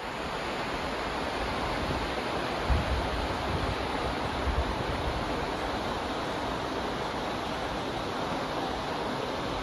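Steady rush of water in a cruise ship's wake churning behind the stern, with wind on the microphone giving a couple of brief low buffets about three and four and a half seconds in.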